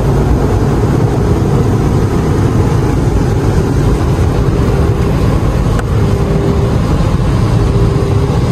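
Automatic car wash rinse: water spraying and drumming steadily on the car's body and glass, heard from inside the cabin, with a faint on-and-off hum from the wash machinery.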